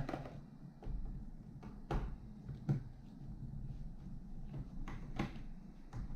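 Light, scattered clicks and knocks, about five over several seconds, from hands working on a laptop and its small case screws.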